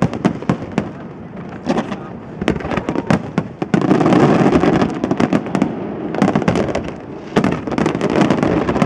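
Aerial fireworks display: shells bursting in rapid succession, a run of sharp bangs with crackle between them. The bangs come thickest from about four seconds in and again near the end.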